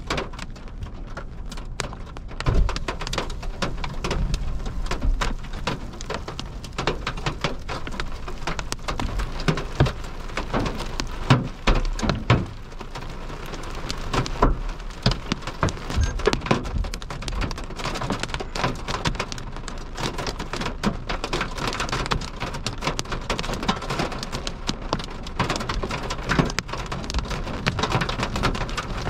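Rain pelting a car's windscreen and body, heard from inside the car as a dense patter of drop ticks. Low rumbles of thunder swell up now and then, most strongly around 11 to 12 seconds in.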